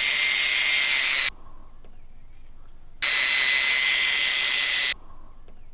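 A machine with a loud hiss and a steady high whine runs in bursts of about two seconds, cutting off and starting again twice.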